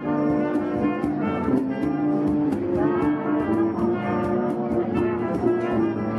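Background music led by brass instruments, with a steady beat.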